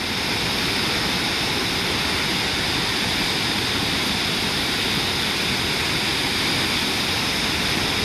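A waterfall rushing close by: a steady, even noise with no breaks.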